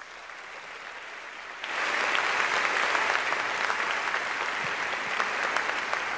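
Audience applauding: the clapping builds and then swells sharply louder about two seconds in, holding steady after that.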